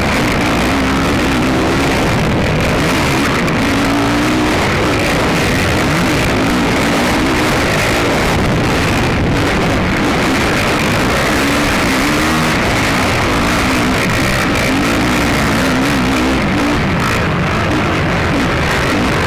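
Racing ATV engine heard from on board, its revs rising and falling over and over under a steady rush of noise.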